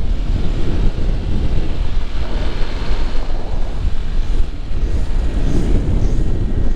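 Wind buffeting the microphone of a rider on a moving motor scooter: a loud, steady low rumble.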